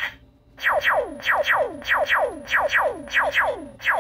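Toy laser tag blaster's electronic sound effect in its laser blast mode: a quick run of falling-pitch 'pew' zaps from its built-in speaker, starting about half a second in.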